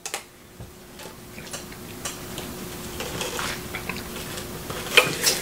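Someone drinking from a paper soda cup close to the microphone: a run of small clicks and swallows that slowly grows louder, with a sharper click near the end.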